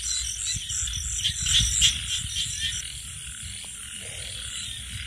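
Frogs croaking in a chorus at night, over an evenly repeating high pulsing call that stops a little past halfway. Low rustling and thumps sound underneath.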